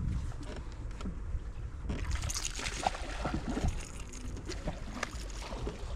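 Wind rumbling on the microphone aboard a small fishing boat, with scattered clicks and knocks. From about two seconds in, a hissing splash of water joins in.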